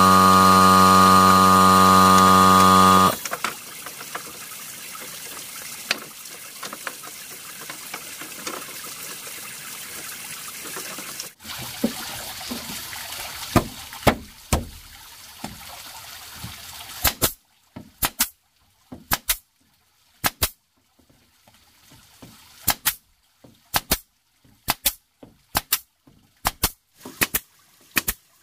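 A small motor hums steadily and cuts off about three seconds in. A faint steady hiss follows, then, from a little past halfway, an irregular string of sharp clicks and knocks with near silence between them.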